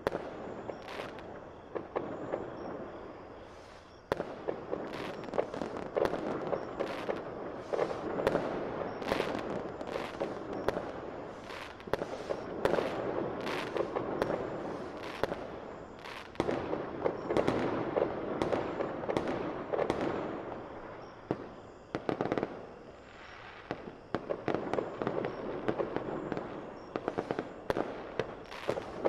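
Fireworks going off: dense crackling with many sharp pops, swelling and easing in waves, with a short lull about four seconds in and another quieter spell near the end.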